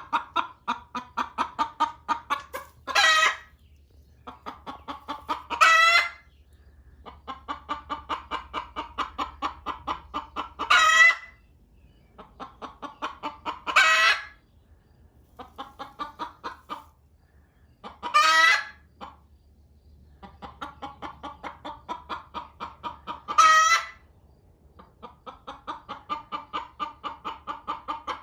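Hen cackling: runs of quick clucks, about five a second, each run ending in a louder, drawn-out rising squawk, six times over. This is the loud egg-laying call, which the keeper takes for one hen clucking at the hen on the nest to hurry her off so she can lay.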